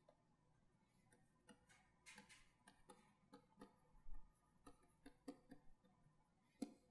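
Faint, irregular ticks and short scratches of a stylus tapping and stroking on a tablet as block capital letters are written.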